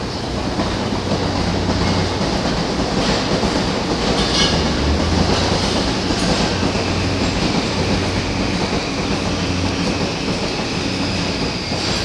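Electric train noise at a station: a steady low hum under a broad running noise that swells and eases, with a few faint rail clicks.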